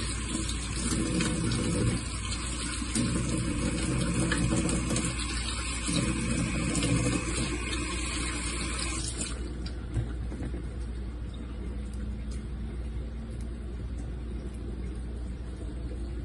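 Kitchen tap running into a sink, splashing unevenly as food is rinsed under it, then turned off about nine seconds in.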